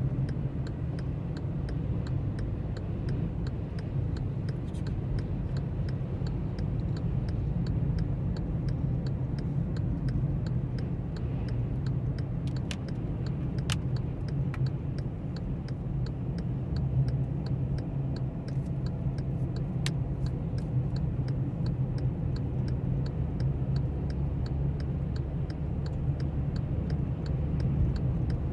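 Car in motion heard from inside the cabin: steady low engine and road rumble, with a regular ticking running throughout and a few sharper clicks midway.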